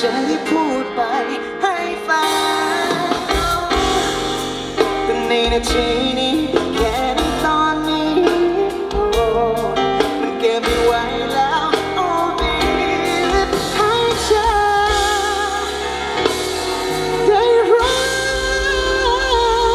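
Live band playing a song: a sung lead vocal over bass and drums, with the bass and drums filling out about three seconds in.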